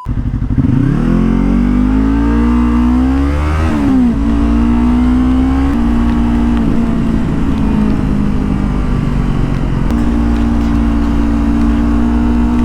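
Yamaha R25 V2's 250 cc parallel-twin engine pulling under acceleration while riding: the pitch climbs for about three seconds, drops sharply at a gear change, then holds steady at cruising speed. Steady wind and road noise run underneath.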